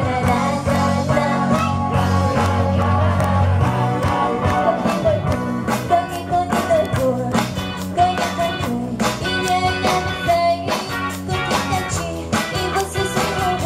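Live band playing a pop-rock song: a woman sings a melody into a microphone over electric guitar, keyboard and a drum kit, heard through the stage PA.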